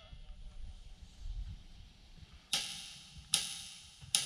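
Karaoke backing track starting the next song with a drum count-in: three sharp clicks just under a second apart, each ringing briefly, over a faint low rumble.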